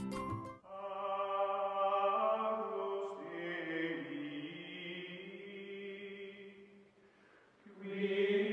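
Background music of slow, chant-like voices holding long sustained chords. A busier, beat-driven music passage cuts off about half a second in; the held chord fades away and a new one swells in near the end.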